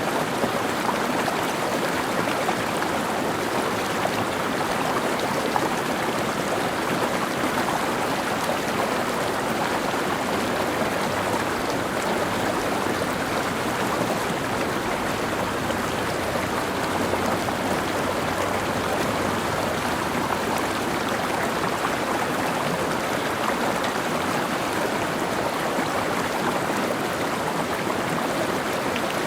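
Mountain stream flowing and babbling steadily over rocks.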